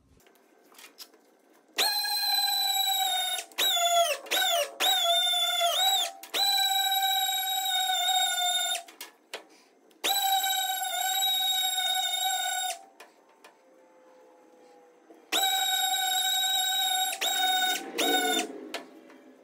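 Pneumatic random-orbit sander whining at a high, steady pitch in several runs of one to three seconds as the trigger is pressed and released, its pitch sagging briefly a few times, while finish-sanding a guitar body.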